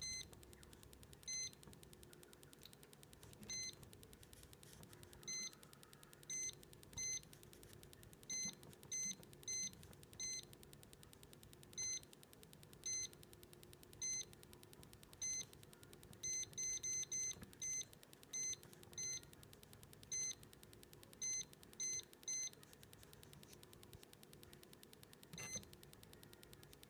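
Lowrance Mark-5x Pro fishfinder giving a short high key beep at each button press as its menus are stepped through: about two dozen beeps at irregular spacing, several in a quick run around the middle.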